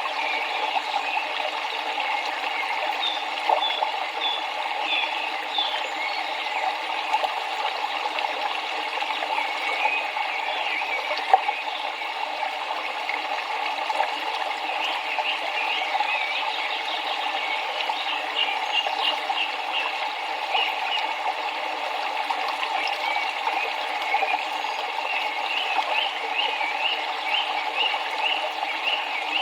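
Steady rush of flowing river water, with high chirping calls over it that come in quick repeated runs, most of all near the end.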